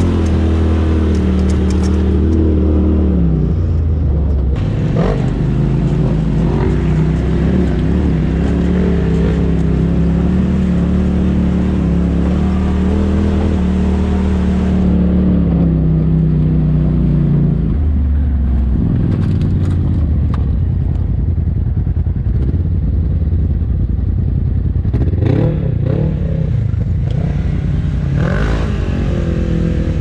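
Polaris RZR side-by-side engine running at low trail speed, heard from inside the open cab, its note rising and falling with the throttle. Past the middle it settles to a steady idle, the machine stopped at about 1250 rpm.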